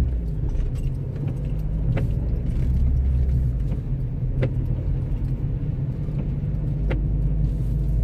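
Car driving slowly on a snow-covered road, heard from inside the cabin: a steady low drone of engine and tyres that swells and eases a little, with three faint light ticks about every two and a half seconds.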